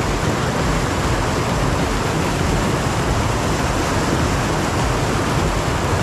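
Steady rush of white water pouring over a shallow, rocky river rapid.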